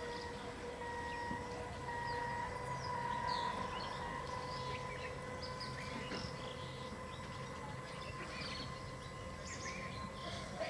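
Birds chirping repeatedly over a faint steady hum.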